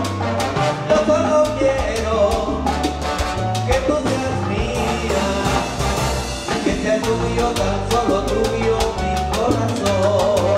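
Live salsa band playing, with a bass line and Latin percussion under the melody.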